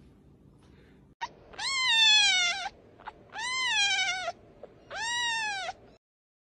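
Fluffy black young pet crying out three times: long, high calls that each rise and then fall in pitch, after a short click.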